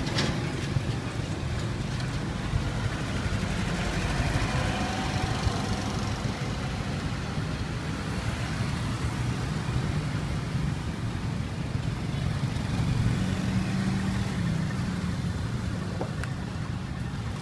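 Steady street traffic noise: a continuous low rumble of passing motor vehicles, with an engine growing a little louder about thirteen seconds in.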